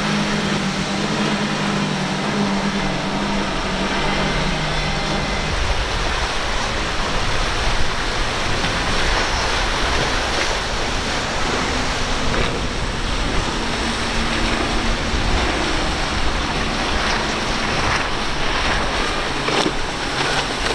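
Outboard-powered boats running fast through rough inlet water: engine drone under a continuous rush of spray, waves and wind. A steady engine hum stops about five and a half seconds in, leaving mostly water and wind noise.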